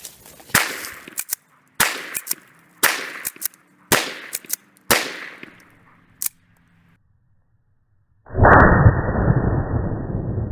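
Remington 870 Police Magnum 12-gauge pump shotgun firing: five sharp, loud shots about a second apart, each trailing off, with fainter cracks in between. A loud, steady rush of noise starts suddenly near the end.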